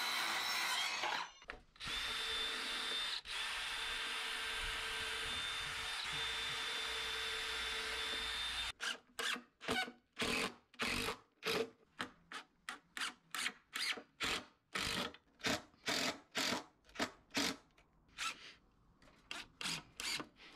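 Circular saw cutting through a pressure-treated decking board with a steady whine, broken briefly about a second in. From about nine seconds a cordless drill runs in short bursts, about two a second, thinning out near the end.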